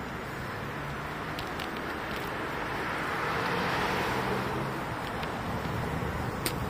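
Road noise from riding a bicycle: wind on the microphone and rolling tyres, a steady rush that swells and eases about halfway through, with a few faint ticks.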